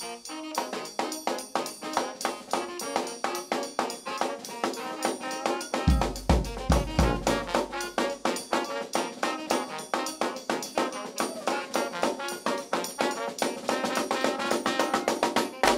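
New Orleans brass band playing live: trumpet, trombone and saxophone over a steady drum beat, with a cluster of heavy bass drum hits about six seconds in.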